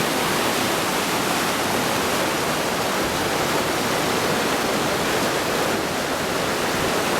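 Waterfall rushing steadily, a dense, unbroken roar of falling water.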